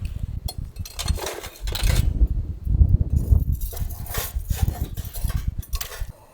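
Strong, gusty wind buffeting the microphone, a rumble that rises and falls, with repeated bursts of rustling.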